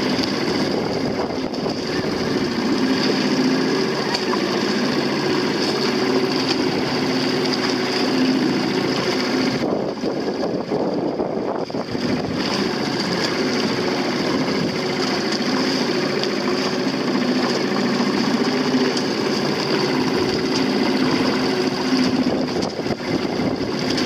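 Outboard motor of a small boat running steadily under load while towing a dinghy, a constant drone with a high whine over it that dips briefly about ten seconds in.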